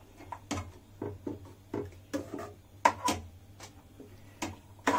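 Steel spoon stirring thick vegetable bhaji in an aluminium kadai, knocking and scraping against the pan in an irregular string of clicks, about two or three a second, a few of them ringing.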